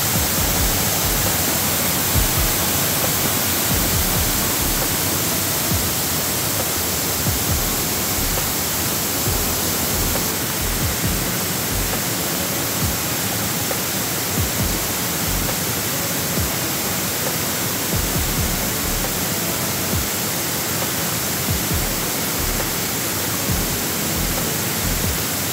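Waterfall: a loud, steady rush of falling water, with occasional low thumps.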